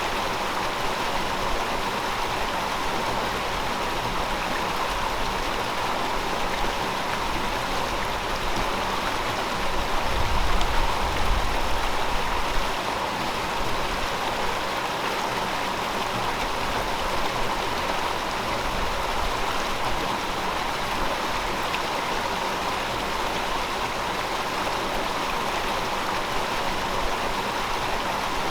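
River water flowing in a steady, even rush. About ten seconds in, a low rumble swells for two or three seconds, then fades back into the flow.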